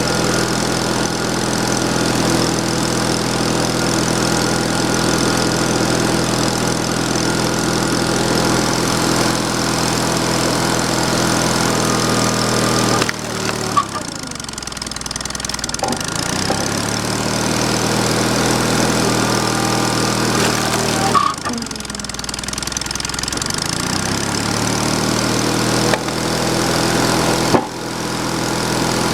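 Sawmill engine running steadily. Twice its pitch and level drop with a sharp click, then climb back over a few seconds, and another click comes near the end.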